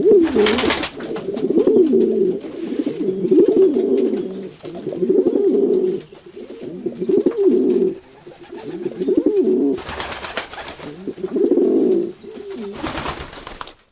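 Pigeons cooing, one warbling coo after another about every second and a half, with three short rustling bursts in between. The sound cuts off suddenly just before the end.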